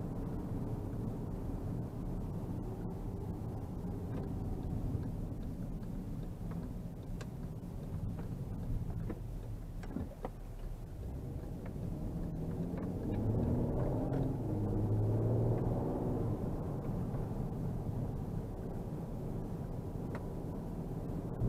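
Škoda Superb II 3.6 V6 heard from inside the cabin while driving: a steady engine and tyre rumble, with the engine note rising as the car accelerates about two-thirds of the way through. A single knock about halfway.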